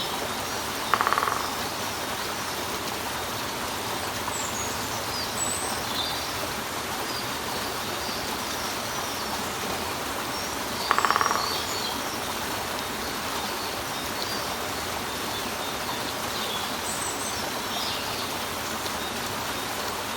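Water running steadily over rock, with a woodpecker drumming twice: short, rapid rolls about a second in and about eleven seconds in. Faint high bird chirps come and go.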